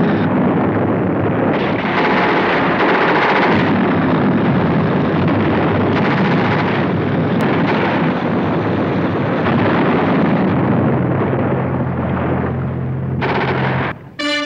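Dense battle sound effects of gunfire and explosions over the steady drone of military vehicle engines. It cuts off abruptly just before the end.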